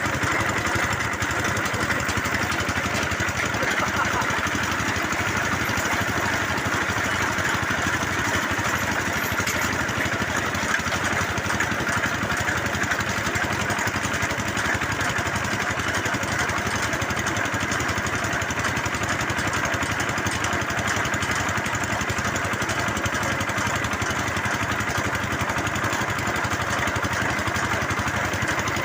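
Engine of a bore well drilling rig running steadily at a constant speed, with no change in pitch or level.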